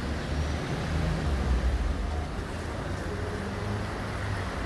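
City street traffic ambience: a steady low rumble of vehicles with a faint engine hum.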